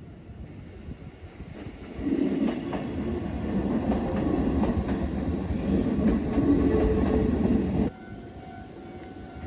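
Train passing close by, its wheels clacking over the rail joints. It swells loudly about two seconds in and cuts off abruptly near the end.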